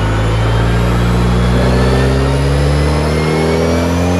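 Turbocharged BMW M42 four-cylinder in an E30 at full throttle on a chassis dyno, its revs climbing steadily in one smooth pull with no flat spot. The tuner takes this as the ignition-related flatline cured by fitting original Bosch M42 TU coils.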